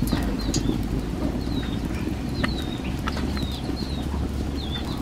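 Small bird chirping: short, high, hooked calls repeating irregularly. A few light clicks and a steady low rumble sit underneath.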